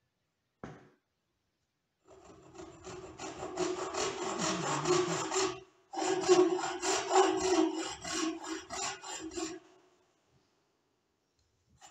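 Wooden frame saw (bow saw) cutting a thin wooden strip by hand: two runs of quick back-and-forth rasping strokes with a short pause between, over a steady tone. A single short knock comes before the sawing starts.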